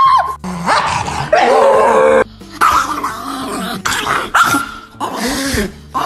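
Small chihuahua growling and yapping in short bursts, breaking off abruptly several times.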